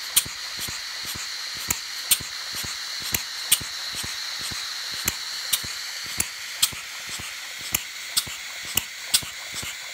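Half-scale Gardner size 0 hot-tube gas engine running slowly on propane under hit-and-miss governing: a steady hiss, a quick light clatter of the valve gear, and sharp cracks at uneven intervals, often in pairs, where it fires only when the inertia governor lets gas in.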